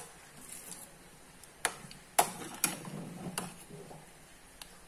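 A metal spoon stirring thick horse gram porridge in a stainless steel pot, clinking sharply against the pot several times, about four clinks between one and a half and three and a half seconds in, with a soft stirring sound of the porridge between them.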